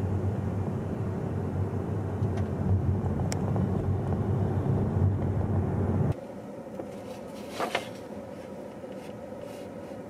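Road and engine noise inside a moving car's cabin, a steady low rumble. About six seconds in it cuts abruptly to a much quieter stationary car interior with a faint steady hum and one brief noise.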